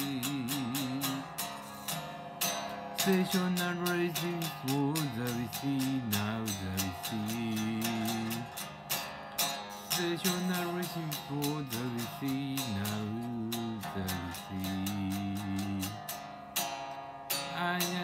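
Music: an electric guitar played with a pick, with a melody line that bends and wavers in pitch over a busy, steady run of picked notes.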